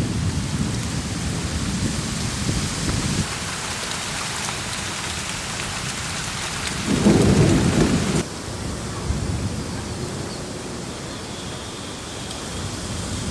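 Rain falling steadily during a thunderstorm, with thunder rumbling low in the first few seconds. About seven seconds in a louder thunder clap rolls in and cuts off suddenly about a second later, and the rain is softer after it.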